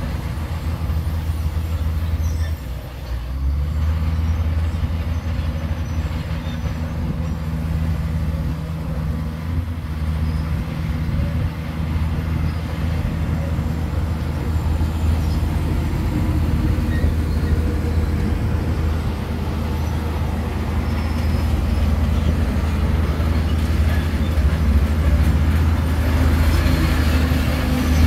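Heavy diesel engine of a bulldozer running under load, a steady low drone that dips briefly about three seconds in and grows a little louder near the end.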